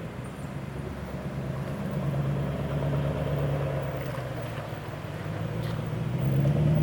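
An engine running steadily, its speed and loudness rising about two seconds in, easing off, then rising again near the end.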